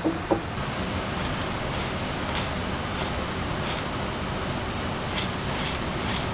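Steady rushing background noise, with two quick knocks right at the start, then a scattered string of short, sharp scratchy sounds from hands working kindling in a fire pit.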